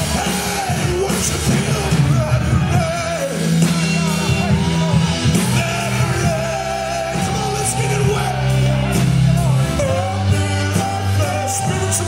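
Live gospel praise band with drum kit and cymbals, sustained stepping bass notes and a lead voice singing long, wavering lines.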